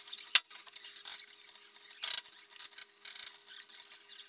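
Close rustling and scraping of an airsoft player's gear and boots on a gritty concrete floor. There is one sharp click about half a second in, then short rasping scrapes, the strongest about two seconds in.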